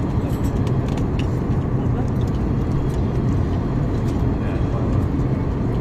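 Airliner cabin noise in flight: a steady low rush of engines and airflow with no changes.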